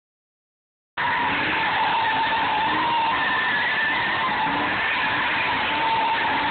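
A car doing a burnout, its spinning tyres giving one long, loud squeal that wavers in pitch, starting about a second in.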